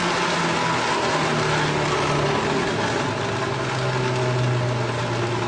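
Foam shredder running: a steady mechanical noise with a motor hum that drops in pitch twice.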